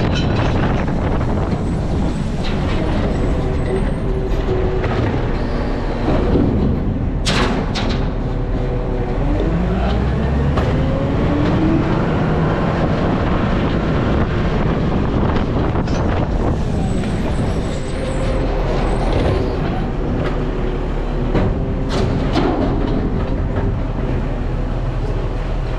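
Garbage truck's diesel engine running, its pitch rising and falling as it revs up and down, with a couple of sharp knocks.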